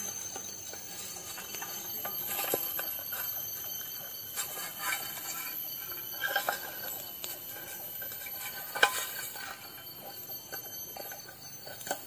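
Scattered light clicks and knocks of camp gear being handled, over a faint steady high thin ringing tone.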